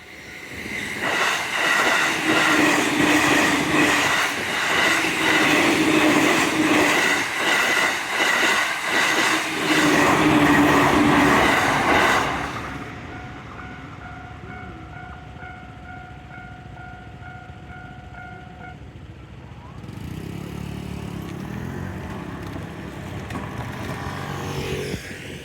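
A train passes over the level crossing, its wheels clacking rhythmically over the rail joints, and fades out about 12 s in. Underneath, the crossing's electronic warning bell chimes in a steady repeating pattern, a standard crossing tone that is higher-pitched than usual. The bell stops about 19 s in, and a lower, quieter rumble follows near the end.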